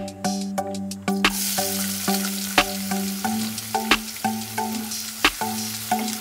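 Sliced onions sizzling as they fry in hot oil in a pan, the sizzle starting suddenly about a second in when they hit the oil.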